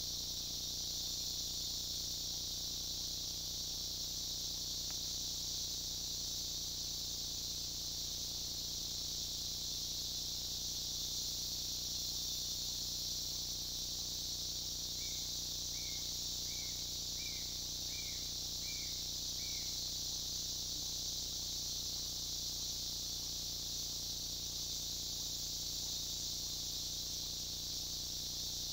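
Steady, high-pitched chorus of rainforest insects such as crickets or katydids. Around the middle, a short series of seven evenly spaced calls, about one every 0.7 seconds, comes from another animal.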